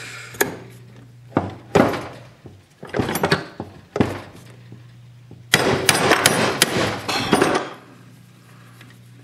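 Sharp knocks and metallic clatter of a hand tool working the bolts on a Maico 500 engine crankcase, as the last case bolt is taken out before splitting the case. Single knocks come every second or so, then about five and a half seconds in comes a two-second stretch of dense rattling and scraping.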